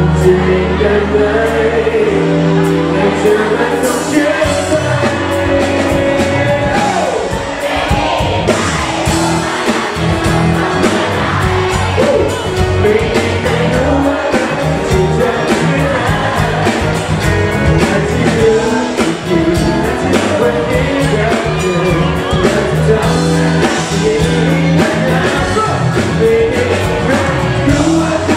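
Live pop-rock band playing loudly with a singer, drums and bass driving the song, and audience voices faintly in the mix.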